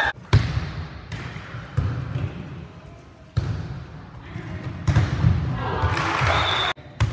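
Volleyball rally in a gym: the ball is smacked off hands and forearms several times, each hit a sharp slap echoing around the hall, the loudest about a third of a second in. Players' voices and calls come between the hits.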